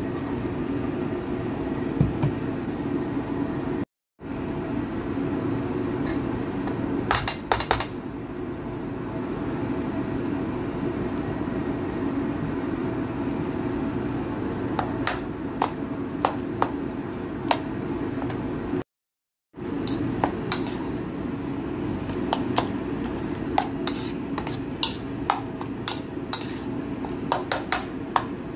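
Metal spoon stirring and mashing soft steamed eggplant in a bowl, with scattered sharp clinks of the spoon against the bowl over a steady low hum. The sound cuts out completely twice for a moment.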